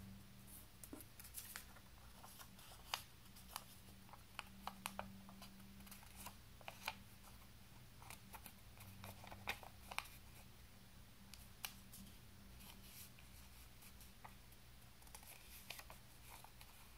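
Faint rustling and crackling of thin patterned paper being folded and creased by hand: short, irregular crackles scattered throughout, over a steady low hum.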